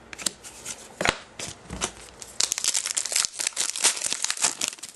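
A hockey trading card pack's wrapper crinkling as it is handled. There are scattered crackles at first, then dense rapid crackling through the second half.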